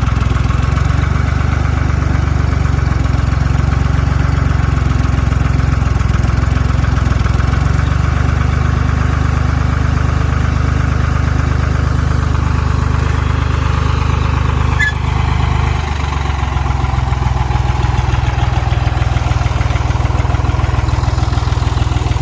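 A vehicle engine idling steadily, with a brief click about two-thirds of the way through and a slight drop in level just after.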